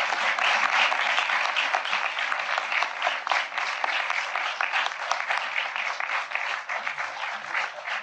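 A roomful of people applauding: dense, sustained clapping that slowly thins out toward the end.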